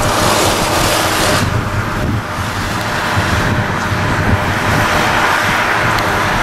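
Skis hissing and scraping on groomed snow, with wind rushing over the microphone as the camera moves downhill. The hiss is loud and steady, swelling and fading.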